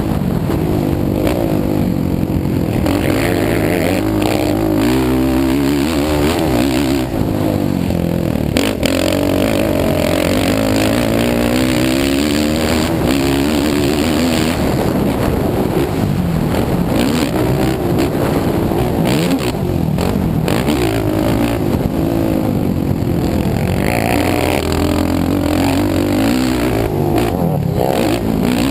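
Sport ATV's engine, heard close from the rider's helmet camera, revving up and falling back again and again as it is ridden hard around a dirt motocross track. There is a single sharp knock about nine seconds in.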